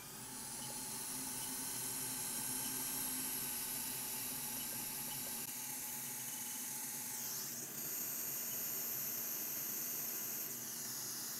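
Hot air rework station blowing a steady hiss of air, with a faint motor hum under it, heating a surface-mount capacitor to desolder it. The hiss dips briefly twice.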